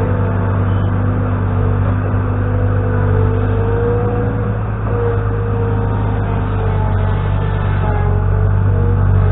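New Holland LX665 skid steer loader's diesel engine running steadily while working, a constant low drone with a higher whine that wavers a little in pitch.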